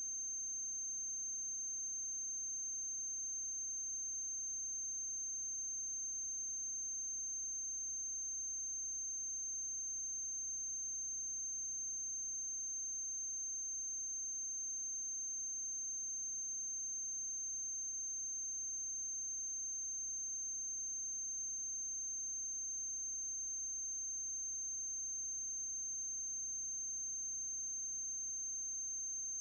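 A steady high-pitched whine over a faint low hum and hiss, unchanging throughout, with no other sound: the noise floor of a transferred silent film.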